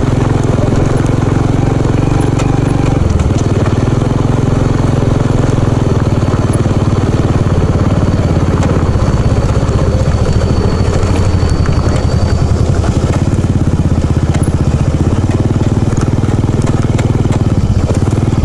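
Small motorbike engine running steadily while being ridden along a dirt track, heard from the rider's seat.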